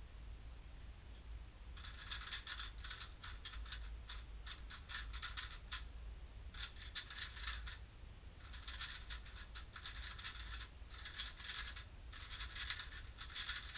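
Plastic 3x3 Rubik's cube being turned rapidly in the hands: a fast clicking clatter of the layers, coming in bursts of one to two seconds with short pauses between, starting about two seconds in.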